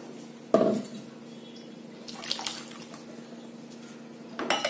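Thin tomato curry simmering with soft bubbling in a steel kadai on a gas burner, under a steady low hum. A single knock about half a second in.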